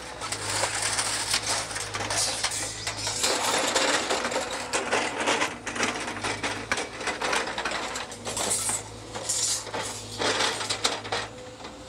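Hydraulic excavator with a grapple claw working a pile of debris: a low engine hum under loud, irregular clattering and crashing of broken wood, metal and rubble being gripped and dropped.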